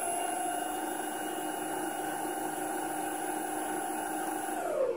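Turnigy Aerodrive SK3 6354-260kv brushless outrunner motor of an electric longboard spinning the belt-driven rear wheel freely, a steady whine at the throttle-limited top speed of about 10 mph. The whine falls in pitch as the motor winds down near the end.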